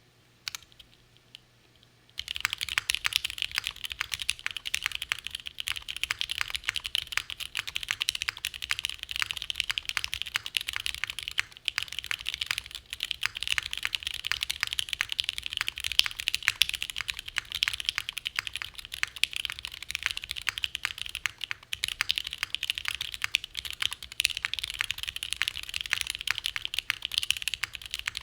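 Rapid, continuous typing on an ATXKB Moontower v2 mechanical keyboard with stock Gateron KS-3 Milky Yellow Pro linear switches, GMK Dolch keycaps and a forged carbon-fibre half-plate. A couple of single keystrokes come first, then fast steady typing starts about two seconds in.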